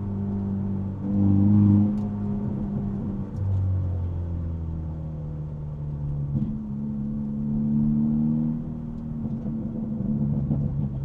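Hyundai Elantra N's turbocharged 2.0-litre four-cylinder running, its exhaust note heard muffled from inside the car's trunk. The note holds a steady pitch for a few seconds at a time and steps up and down in pitch several times, loudest about a second and a half in.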